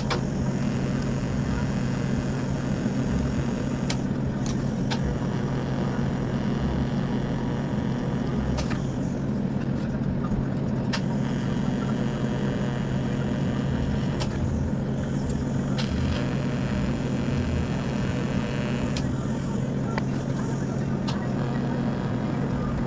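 TIG welding arc from a Miller Econotig welder, a steady buzzing hum with hiss, broken by a few sharp clicks.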